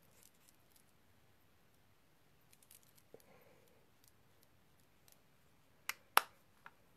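Mostly quiet, with a few faint ticks midway, then two sharp clicks close together about six seconds in and a smaller one just after, from makeup tools and containers being handled and set down.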